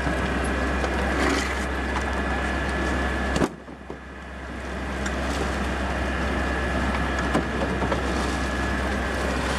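A small engine running steadily, a low drone with a thin steady whine above it and a few light knocks. The sound cuts out suddenly about three and a half seconds in and fades back up over the next second or so.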